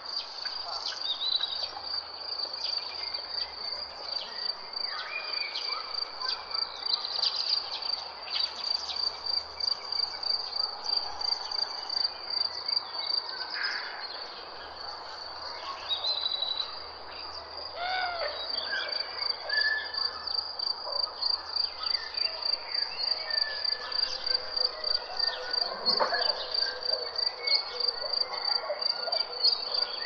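Crickets chirping in a steady, evenly pulsed high trill, about three pulses a second, with scattered bird whistles and short gliding calls over it.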